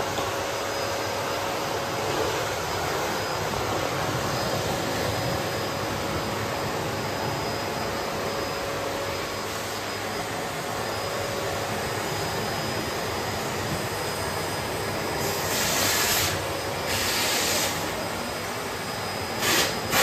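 Bosch BGS21X320 bagless canister vacuum cleaner running steadily: a constant rush of air with a faint steady whine over it. A few brief, louder hissing rushes of air come in the last few seconds.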